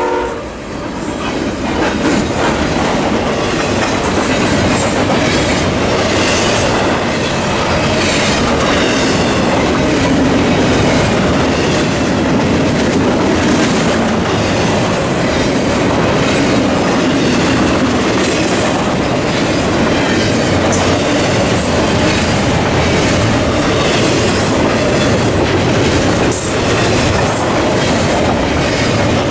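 Double-stack intermodal freight cars rolling past at speed: a steady loud rumble of wheels on rail with rhythmic clickety-clack over the rail joints. The locomotive horn's last chord cuts off just as it begins.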